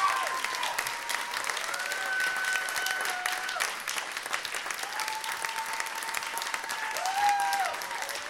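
Audience applauding steadily, with several long held calls from the crowd over the clapping.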